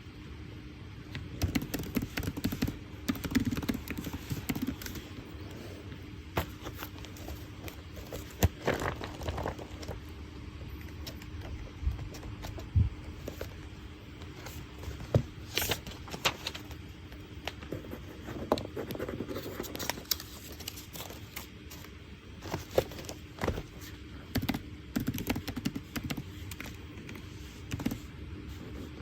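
Scattered clicks and taps of desk work while studying, in busy clusters with a few louder single knocks, over a faint steady hum.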